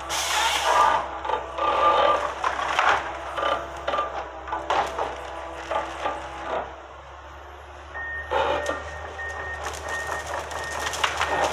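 Tracked forestry harvester with a Waratah H414 head at work in pine thinning: engine and hydraulics running under repeated knocking and cracking of wood. A reversing alarm beeps steadily from about eight seconds in.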